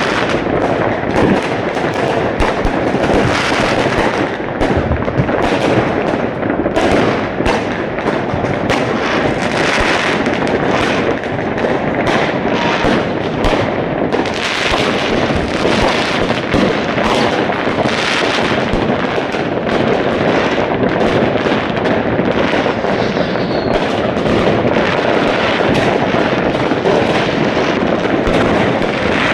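Dense, continuous fireworks: a steady barrage of overlapping bangs and crackling firecrackers with no let-up.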